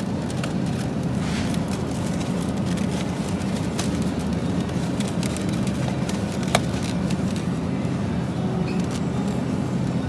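Steady low rumble of store background noise, with a single sharp click about six and a half seconds in.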